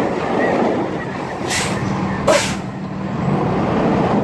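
Dump truck engine running steadily while the raised bed empties its load, with two short hisses about a second and a half and two and a quarter seconds in, the second the louder.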